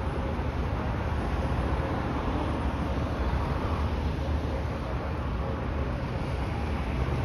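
Steady low rumble with wind noise on the microphone and a faint steady hum, unchanging throughout.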